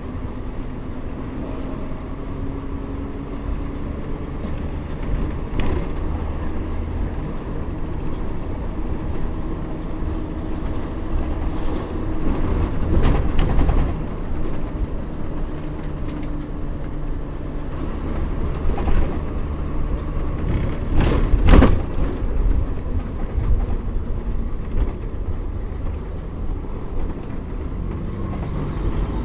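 Bus riding along, heard from inside: a steady engine hum and road rumble, with the engine note rising gradually over the first ten seconds or so. Sharp rattling knocks come a few times, the loudest about two-thirds of the way through.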